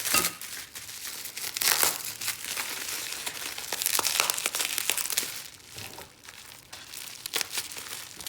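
Packaging being unwrapped by hand, crinkling and rustling in irregular bursts.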